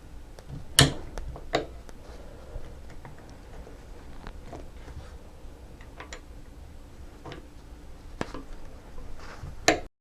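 Small metal parts and tools clicking and tapping as a motorcycle brake master cylinder and its lever are worked on at the bench: a sharp click about a second in, another soon after, scattered lighter taps, and two more clicks near the end.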